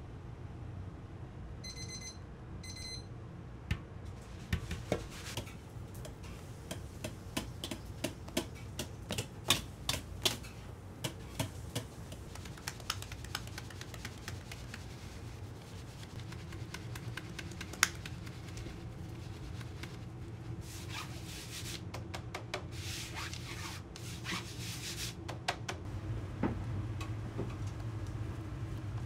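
Kitchen prep sounds of utensils on a stainless steel bowl and sieve: two short electronic beeps about two seconds in, then a long run of light taps and clicks, and later some rough scraping, over a steady low hum.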